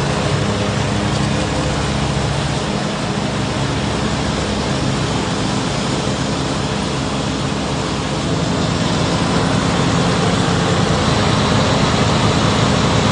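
Vehicle engine running steadily under a dense rush of noise, growing a little louder about two-thirds of the way in, then cutting off suddenly.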